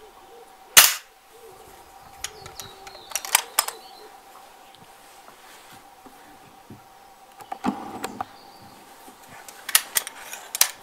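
1928 Haenel Model 2 .177 spring-piston break-barrel air rifle firing once, a sharp crack about a second in, followed by a few light metallic clicks. Later the barrel is broken open and closed again to cock and reload, with a clatter about halfway through and more clicks near the end.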